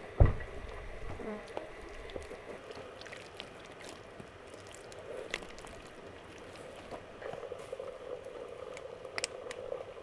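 Wet clay squelching and slapping as it is packed and shaped by hand, with a heavy thump just after the start.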